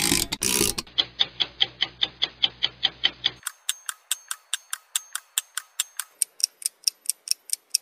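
Quick, even clock-like ticking from the dance track's backing audio, about six ticks a second. A low hum under it cuts off about three and a half seconds in, leaving thinner, higher ticks.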